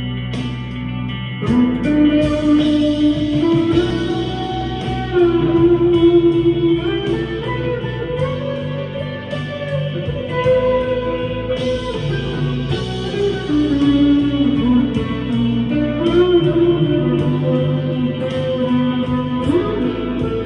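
Harley Benton CST-24 electric guitar played through a Vox AV15 amp on its crunch channel, with reverb, delay and chorus. It plays held notes, several of them bent up or down in pitch, one rising bend near the end.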